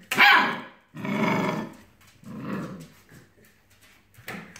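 A five-week-old Labrador puppy giving three short calls: a sharp bark right at the start, a longer, lower grumbling call about a second in, and a fainter one around two and a half seconds in.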